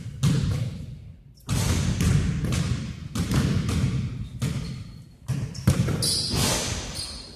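Basketball being dribbled on a hardwood gym floor, bouncing about twice a second with a short pause about a second in. Each bounce echoes through the large gym.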